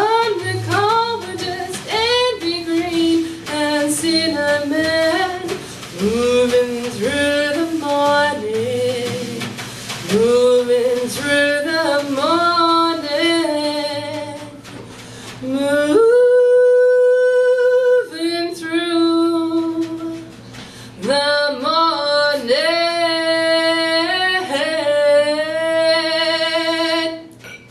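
A woman singing solo, with strong vibrato and a long held high note about halfway through, over a bowed cello. Near the end she holds a long final note with vibrato.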